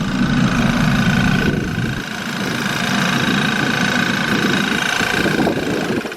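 Audi A4 B8 four-cylinder TSI engine running rough with misfires on several cylinders, then shut off about two seconds in. A steady high-pitched whine carries on after the engine stops.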